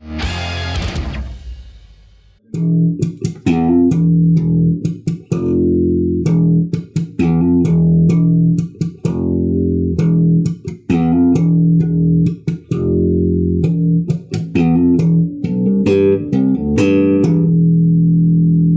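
JET electric bass playing a slap riff: thumb-slapped notes, mostly on the open low E string, with sharp muted dead-note clicks and popped notes in a steady groove. It opens with one bright hit that rings out and fades over about two seconds before the riff starts.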